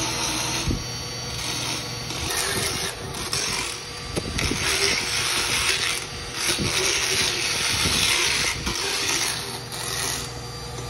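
Motorized equine dental float grinding a horse's teeth: a harsh rasping hiss that swells and eases in several stretches as the float is pressed against the teeth and let off.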